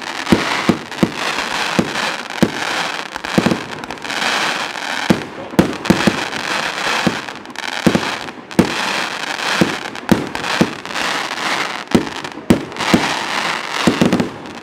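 Audience applauding: a dense patter of clapping with sharp individual claps close by standing out a few times a second.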